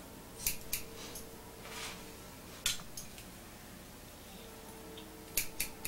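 Hair-cutting scissors snipping through long, dry hair in separate crisp snips: two about half a second in, one near the middle, and three in quick succession near the end.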